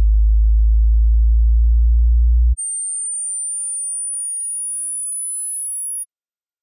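Electronic pure test tones for a hearing test, each pitched higher than the last. A deep, loud, steady tone gives way about two and a half seconds in to a very high-pitched whine that slowly climbs. Near the end it steps up to an even higher, much quieter steady tone, meant to be hard to hear.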